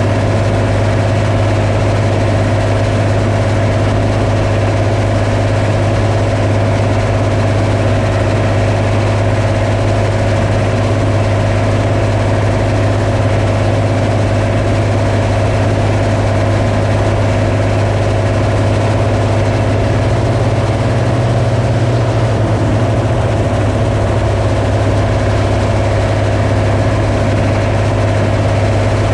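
Farm machine's engine running at a steady speed: a constant low drone with a steady higher hum over it.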